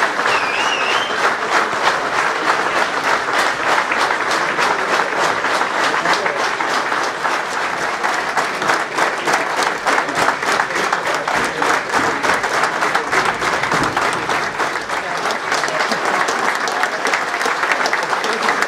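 Crowd applauding steadily: many hands clapping at once, with no break.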